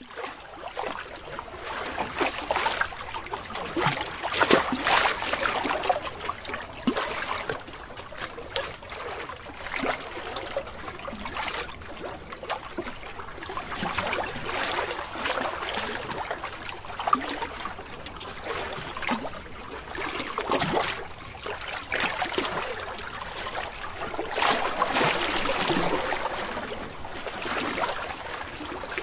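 Water splashing and trickling in uneven surges.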